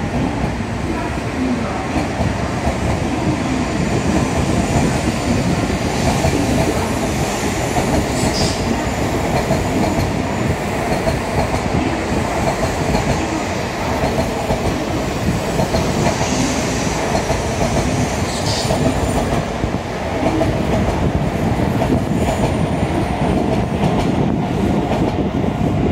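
N700S Shinkansen train pulling away slowly: a steady rumble and clatter of the carriages rolling over the rails, with a steady hum underneath. A short high hiss comes twice, about eight and eighteen seconds in.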